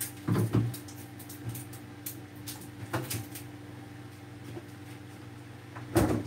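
Short knocks and clatters of grocery items and packaging being handled and put into an open refrigerator: a cluster about half a second in, a few single knocks in the middle and a louder one near the end, over a low steady hum.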